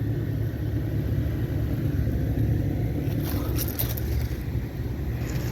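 Outdoor air-conditioner condensing units running nearby, a steady low hum of compressors and fans.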